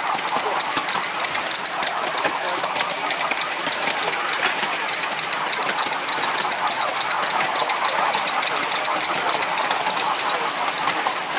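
7¼-inch gauge miniature steam locomotive running along with a quick, regular beat, the train's wheels clattering on the rails.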